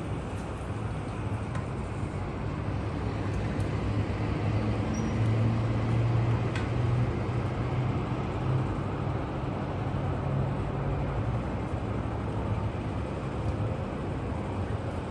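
Steady low outdoor rumble from the street outside, with a low hum that swells from about four to eleven seconds in.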